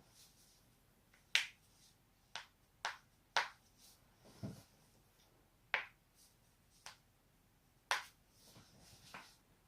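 Neck and back joints cracking: a run of about nine sharp, separate pops at uneven intervals, one near the middle duller and lower than the rest.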